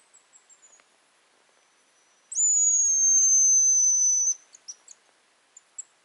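Hazel grouse decoy whistle blown close by: one long, very high, thin note, slightly falling and lasting about two seconds, followed by a few short high chirps. A fainter high whistle trails off in falling notes at the start.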